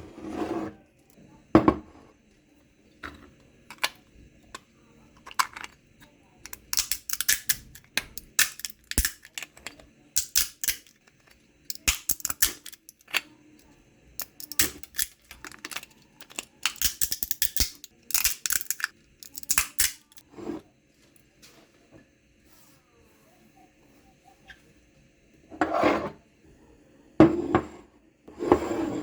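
Kitchen food-preparation sounds: scattered clinks and knocks of dishes and utensils, with bursts of rapid crackly rustling in two stretches in the middle.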